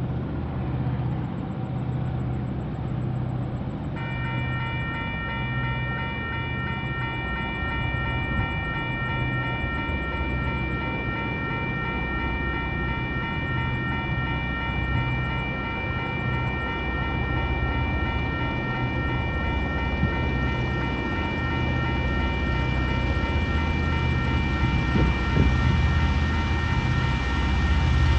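Diesel locomotives 2054 and 2051 working at full throttle up a grade, a low engine drone growing louder as the train approaches. About four seconds in, a steady high ringing tone starts and keeps on, typical of a level crossing warning bell triggered by the approaching train.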